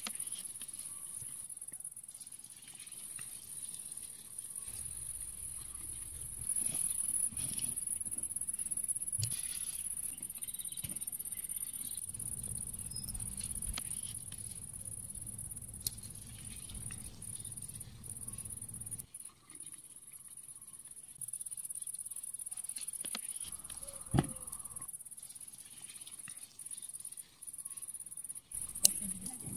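Steady high-pitched insect chirring in the background. A few sharp clicks come from the small steel and brass pen-gun parts being handled and fitted together, the loudest about three-quarters of the way in and near the end.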